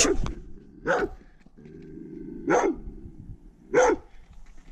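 A livestock guard dog barking at an approaching stranger: four loud single barks, spaced about a second or more apart.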